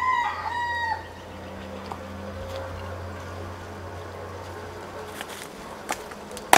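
A rooster crowing, the call ending about a second in. A steady low insect buzz follows, with a sharp click near the end.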